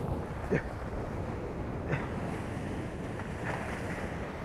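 Steady wind buffeting the microphone and water rushing and spraying past the hulls of a Hobie 16 catamaran sailing at high speed in a strong gust, with a brief louder sound about half a second in.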